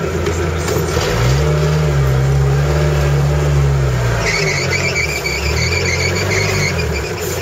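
Off-road 4x4's engine revving up about a second in, held for a few seconds, then easing off as the vehicle pulls back from the obstacle. Just after four seconds a high-pitched squeal sets in and keeps on over the engine.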